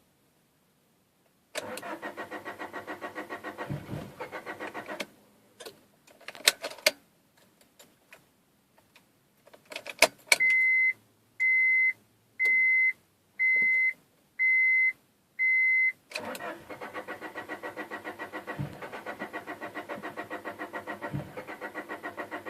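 Honda Prelude's starter cranking the engine in a fast, even chug for about three and a half seconds without it catching, a sign of a no-start. A few clicks follow, then six steady electronic beeps of the car's warning chime about a second apart. Cranking then starts again for the last several seconds, still without the engine firing.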